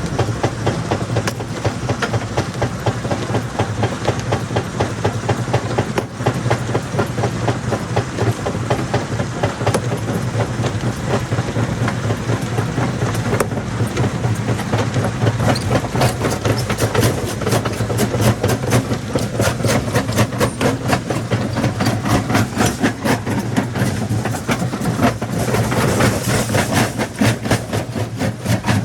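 Jaw rock crusher running: a steady low hum under a dense, rapid clatter of rock being broken in the jaws, growing busier about halfway through.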